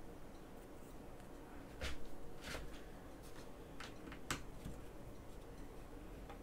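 Scattered light clicks and taps, about half a dozen spread over a few seconds, from a hex driver and small parts being handled while the rear shocks of an RC truck are taken off.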